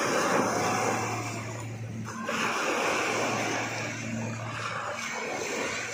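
Small waves breaking and washing up on sand at the water's edge, the surge swelling and easing. A faint steady low hum runs underneath.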